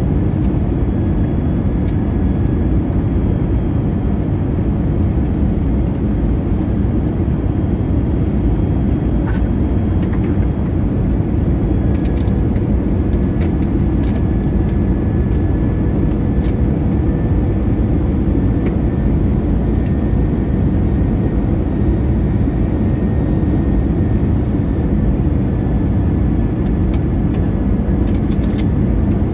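Airbus A321 airliner giving a steady low rumble, with a few faint high tones running through it and scattered light clicks.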